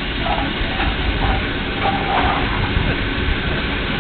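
Steam locomotive standing at a station platform: a steady rush of escaping steam over a low rumble.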